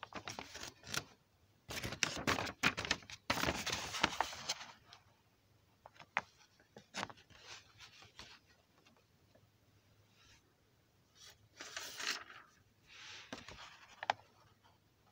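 Paper pages of a hand-drawn picture book rustling as they are turned and handled, with a few light clicks. The longest and loudest rustle comes a couple of seconds in, with two shorter ones near the end.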